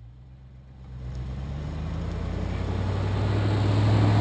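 Land Rover Defender 90's engine pulling at a steady low pitch as it climbs a deep wet-snow hill, growing steadily louder as it comes up to the camera.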